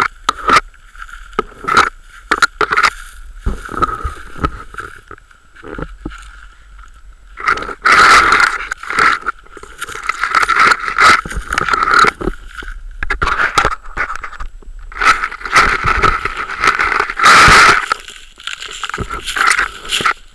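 Rough scraping and rubbing noise in irregular bursts as the camera brushes through dry grass and scrapes against dirt and rock, with a faint steady tone underneath.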